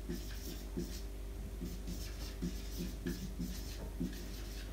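Dry-erase marker writing on a whiteboard: a run of short strokes as words are written out.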